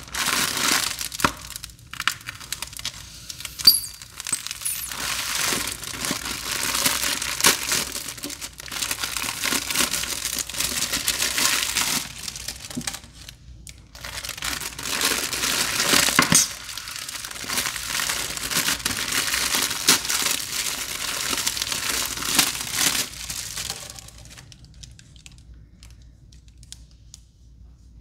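Packaging on new sponges being torn open and crinkled: dense crackling and tearing, broken by a short pause about halfway through, then dying down to soft handling near the end.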